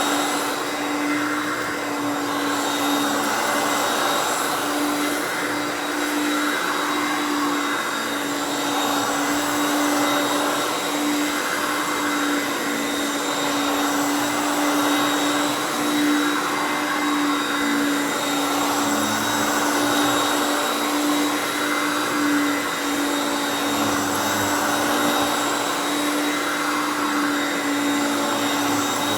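Hoover Concept One Power Drive U3101 upright vacuum with a 5.6 amp direct-air motor, running steadily. A constant motor hum sits over the rush of air, and the rush swells and fades every two to three seconds.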